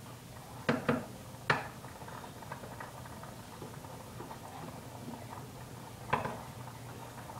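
A long-handled spoon knocking against a pot of boiling pasta while stirring: two quick knocks just under a second in, a sharper one half a second later, and another near the end, over a steady low hum.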